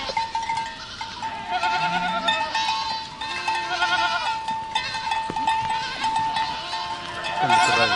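A herd of goats bleating, many overlapping quavering calls one after another. Under them runs a steady ringing tone that breaks off briefly at short intervals.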